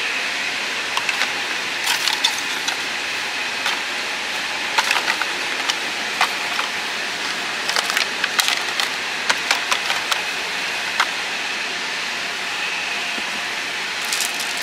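Car wash vacuum running with a steady hiss and a faint whine, switched on suddenly at the start, with irregular clicks and rattles of debris being sucked up the hose.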